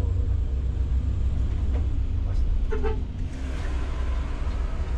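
Steady low rumble of a coach's engine and drivetrain heard inside the cabin, working uphill as the road begins to climb. A rushing hiss joins about three seconds in.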